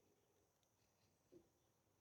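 Near silence: faint background hiss with one soft tick a little past the middle.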